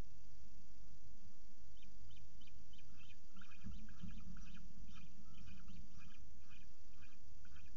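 Peregrine falcon chicks begging: a rapid series of short, high chirps, several a second, starting about two seconds in, over a steady low rumble.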